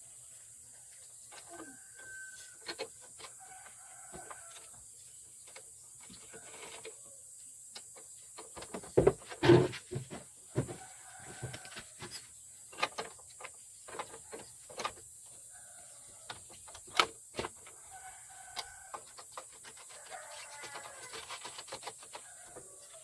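Chickens clucking and calling several times, likely including a rooster. Sharp knocks and clicks are mixed in; the loudest come in a cluster about nine to ten seconds in, with another single sharp one around seventeen seconds.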